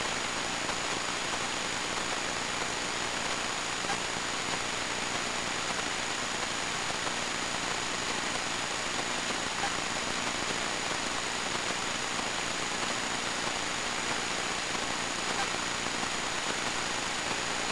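Steady, even hiss with a thin high whine and a faint low hum, unchanging throughout, with no distinct events.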